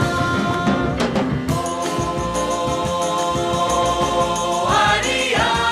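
Music with sustained, held chords and choir-like singing; a sung phrase rises and bends near the end.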